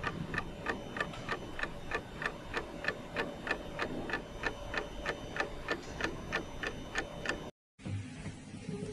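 Clock ticking steadily, about three ticks a second, with a faint steady tone behind it; it stops abruptly about seven and a half seconds in.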